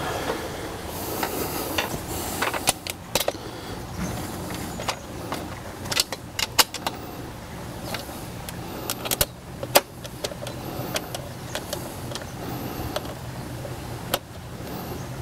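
Irregular sharp metallic clicks and clinks of a 7/16-inch socket wrench fitting onto and turning a steel nut on a bolt in an aluminium frame, some clicks in quick runs.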